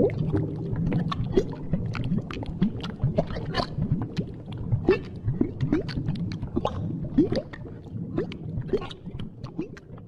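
Stomach gurgling sound effects: a continuous wet rumble thick with short rising gurgles and squelchy clicks. It fades gradually over the last couple of seconds.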